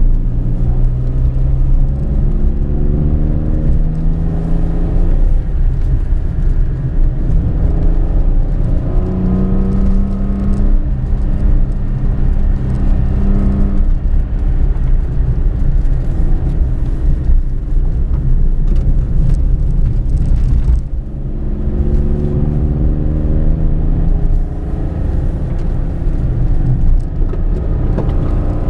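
Toyota Aygo's engine, fitted with a K&N aftermarket air intake, heard from inside the cabin under hard acceleration. The engine note climbs in pitch through the revs and drops back at each gear change, with a short lift off the throttle about two-thirds of the way through.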